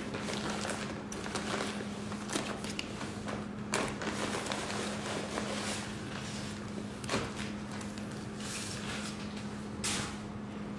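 Clear plastic zip-lock bag crinkling and cotton lawn fabric rustling as a folded suit is slid out of the bag and laid flat, with a few sharp handling clicks, about four of them spread through. A steady low hum runs underneath.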